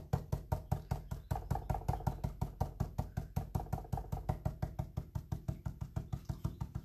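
Stiff flat-tipped stenciling brush tapped rapidly up and down through a stencil onto a painted board, about six even taps a second, stopping near the end.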